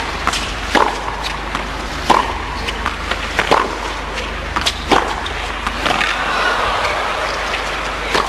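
A tennis rally on a hard court: a sharp racket strike on the ball about every second and a half, with fainter bounce knocks between. Underneath runs the steady murmur of the arena crowd, which swells slightly near the end.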